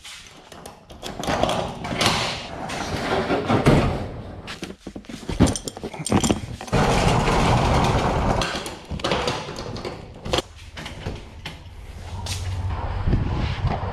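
Handling noises around doors: a rattle of metal, clatter, knocks and sharp clicks, with a stretch of steady rustling in the middle and a latch clicking near the end.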